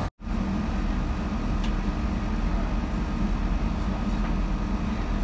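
Steady low rumble inside the passenger saloon of a Chiltern Railways diesel multiple unit, with no announcement playing. The sound cuts out for a split second right at the start.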